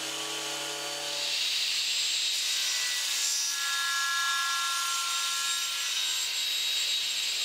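A thickness planer runs with a steady hum for about a second. A table saw then takes over, running steadily as it crosscuts a block of oak.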